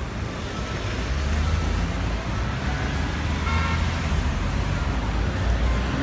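Busy city road traffic: the steady rumble of car engines and tyres passing close by on a multi-lane street.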